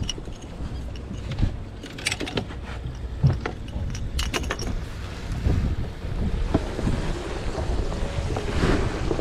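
Wind rumbling on the microphone of a body-worn camera, with scattered light clicks and rattles from the camera and gear being handled, about two seconds in, around three to four and a half seconds in, and again near the end.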